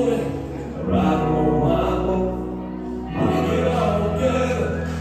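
A song with sung vocals, the music for the line dance.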